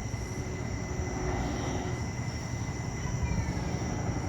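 A moving vehicle's steady rumble with a constant high whine.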